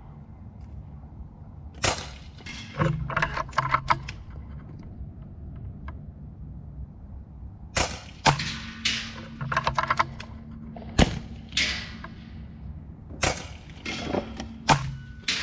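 FX Impact M3 .22 PCP air rifle firing several sharp, snappy shots, spaced a few seconds apart. Between shots come quick runs of metallic clicks as the side lever is cycled to chamber the next pellet.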